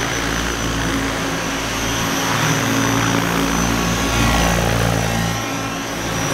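Minicopter Diabolo 600 electric RC helicopter in 3D flight: the 600-class main rotor beats and the motor whines steadily, the blade noise swelling and easing as the model manoeuvres.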